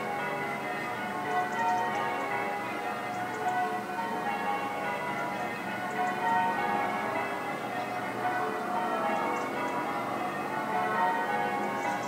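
A peal of church bells, several bells ringing over one another so their tones blend into one continuous sound.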